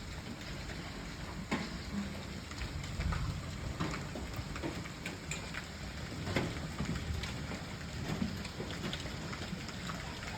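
Hailstorm: a steady hiss of falling hail and rain, with many sharp, irregular knocks of hailstones striking hard surfaces.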